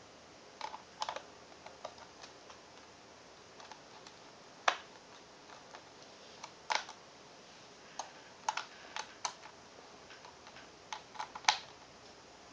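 Scattered light plastic clicks and taps as hands handle and press a laptop's LCD panel into its plastic lid, a few sharper knocks among them.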